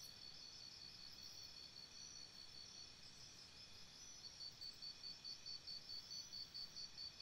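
Insects calling: a high, even chirp pulsing about four to five times a second over steady high buzzing. The chirping fades for a few seconds and comes back strongly about four seconds in.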